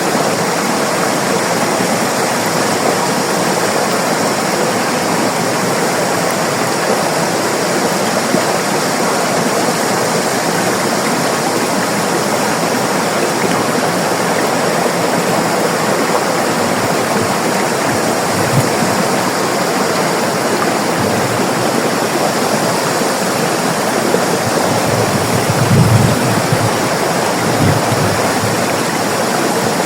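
River water rushing steadily over rocks, a continuous dense rush with occasional low gurgles and thumps in the second half.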